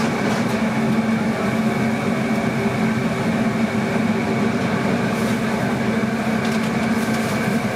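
Steady mechanical drone of commercial kitchen equipment, a constant hum with no change in level, with a few faint metal clicks of tongs against a steel colander.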